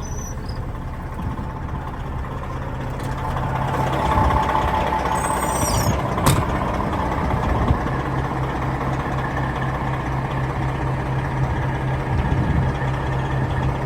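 A Detroit Diesel Series 60 engine in a Peterbilt dump truck running under way, with a steady low drone that grows louder about four seconds in. A brief high squeal comes about five seconds in, and two sharp clicks follow.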